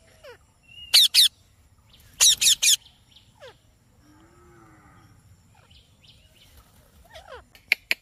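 Indian ringneck parakeets giving short, shrill calls: two about a second in, three more in quick succession around two and a half seconds, and a few again near the end.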